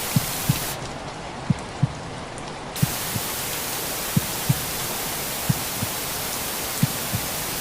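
Steady rain-like white-noise hiss with a heartbeat layered over it: soft low lub-dub thumps in pairs, about one beat every 1.3 seconds. The hiss dips softer and duller for about two seconds near the start.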